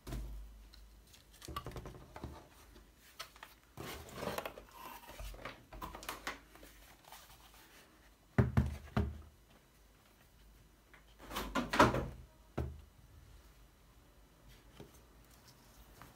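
Unboxing handling noise: a cardboard box, paper and a laptop being moved about, with scattered rustles and knocks. Two louder dull thumps come about eight and a half and twelve seconds in, as the laptop is handled and set down on the desk.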